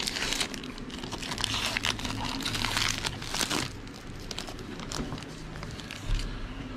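Crinkling and rustling of trading-card packaging as the cards are handled. It is busiest during the first three to four seconds, then eases off.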